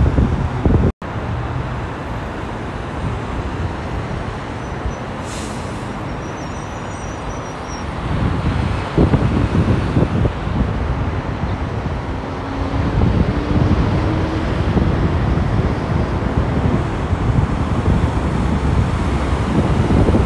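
Busy freeway traffic with cars and heavy trucks passing below: a steady rumble of tyres and engines that grows louder from about eight seconds in as semi-trucks pass close by. The sound cuts out for an instant about a second in, and a faint rising engine note comes through a little past the middle.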